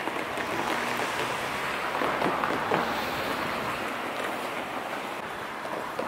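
Steady rushing outdoor background noise, with no single distinct event standing out.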